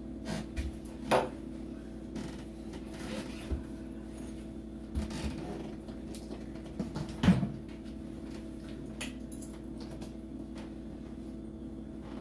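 Steady electrical or appliance hum in a small room, with a few scattered knocks and clicks from objects being handled. The loudest knocks come about a second in and around seven seconds in.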